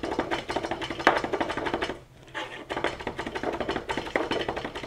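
Chef's knife mincing garlic on a plastic cutting board with a fast rocking motion: a quick run of taps and knocks as the blade strikes the board, with a brief pause about two seconds in.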